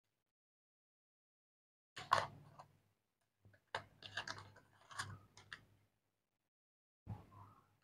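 Foil and paper wrapper crinkling as it is peeled off a chocolate bar. The crinkling comes in three short spells: about two seconds in, from about four to six seconds in, and near the end, with silence between.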